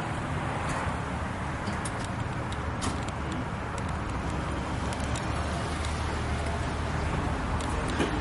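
Steady low background rumble of vehicles, with a few faint clicks.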